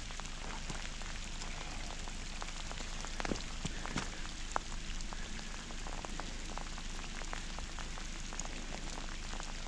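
Light rain falling steadily, with scattered sharp ticks of drops landing close by.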